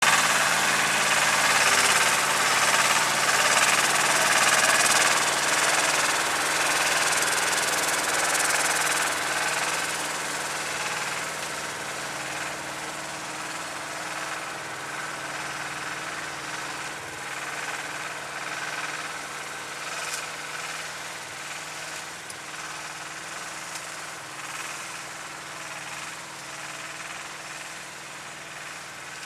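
Engine of a Dtrax articulated all-terrain tractor running as it drives away over rough ground with its dump carrier, loud at first and growing steadily fainter.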